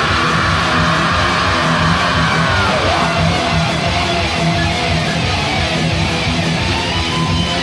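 Thrash metal song: distorted electric guitars and bass playing a fast, steady riff, with no vocals.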